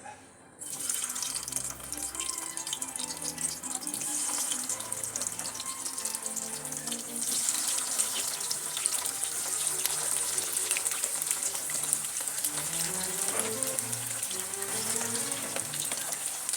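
A steady hiss with fine crackles starts about half a second in and grows louder about seven seconds in, over background music.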